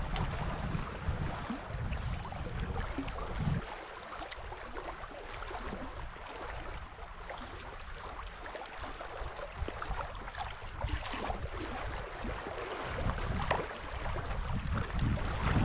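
Small waves lapping and splashing close by, with a low wind rumble on the microphone in the first few seconds and again near the end.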